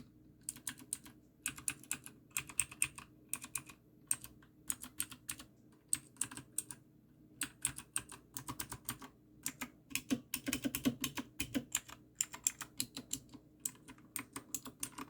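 Newmen GM610 mechanical keyboard with clicky blue switches being typed on, keys clicking in quick runs with short pauses in between. There is a dense flurry of clicks about ten seconds in.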